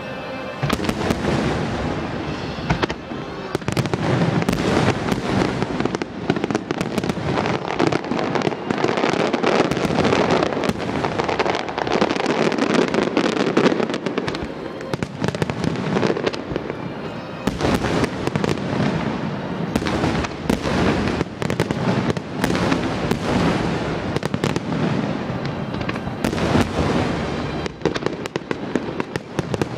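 Fireworks display in a sustained barrage: many shells bursting in quick succession, overlapping booms and crackles with only brief lulls.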